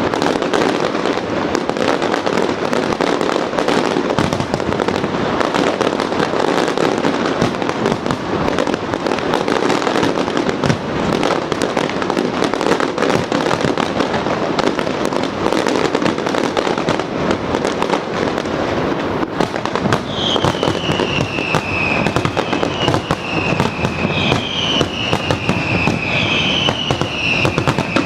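Fireworks display: dense, overlapping bangs and crackle with no break. From about twenty seconds in, a high whistling tone falls in pitch several times over it.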